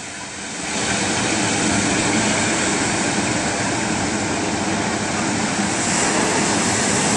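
Steady loud roar of churning, surging water as the wave thrown up by a collapsing iceberg rolls toward the shore; it rises about a second in and then holds level.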